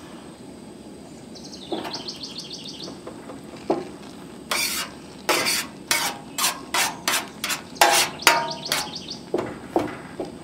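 Metal spoon knocking and scraping against a stainless steel pan as it presses hot, dye-soaked wool down, in a quick run of about a dozen knocks through the second half.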